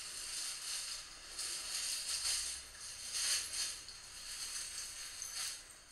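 Soft rustling and crinkling, with brief louder crackles about a second and a half, two, three and five seconds in.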